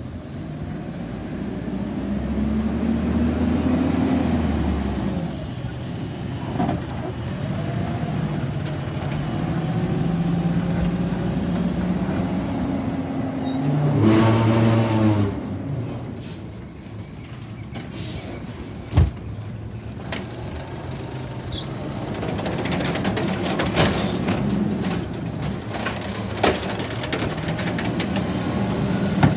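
Diesel garbage trucks: an automated side-loader's engine pulling away and rising through its gears, a brief brake squeal about halfway through, then a truck running as its hydraulic lift arm raises and tips a wheeled cart, with a few sharp knocks.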